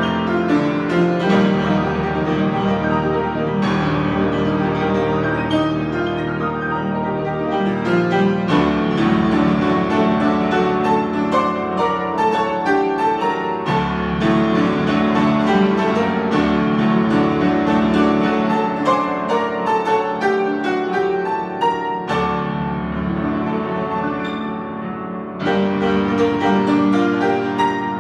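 A 93-year-old grand piano, freshly tuned, played in a dense run of chords and notes with a heavy bass. The playing thins and softens a few seconds before the end, then comes back full.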